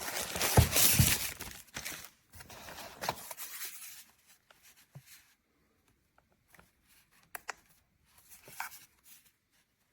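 Rustling and crinkling handling noise for about four seconds, then a few faint separate clicks.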